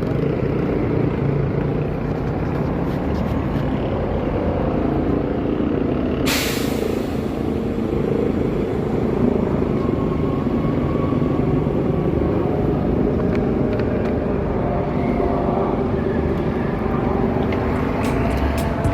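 City street traffic, a steady rumble of passing engines. About six seconds in there is a short, sharp hiss from a bus or truck air brake releasing, and a few sharp clicks come near the end.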